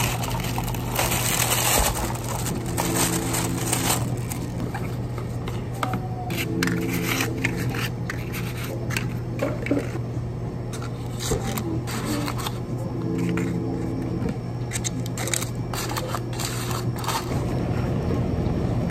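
Packing sounds: a thin plastic bag crinkling around a plastic takeaway cup, then a paperboard box being folded and handled, with irregular small taps, scrapes and crackles. A steady low hum runs underneath.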